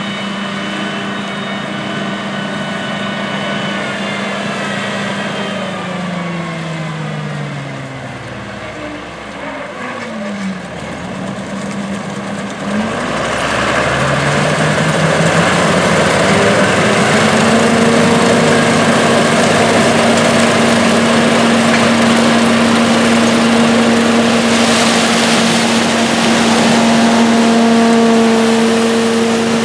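John Deere 4420 combine's six-cylinder diesel engine running steadily. About a quarter of the way in its pitch drops as the engine slows, and about halfway in it climbs back up. From then on it runs steady and louder, with more machinery noise over it.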